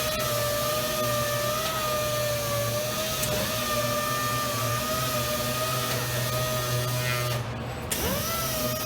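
Robot-held sander running with a steady high whine over a hiss. Near the end it cuts out for half a second, then spins back up to speed.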